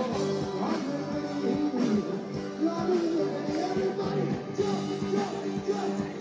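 Rock band playing live, with singing over a steady drum beat.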